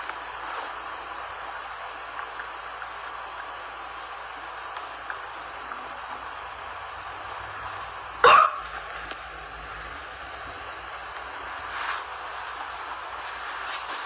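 A girl hiccups sharply once a little past halfway, with a fainter one about three and a half seconds later, over a steady hiss.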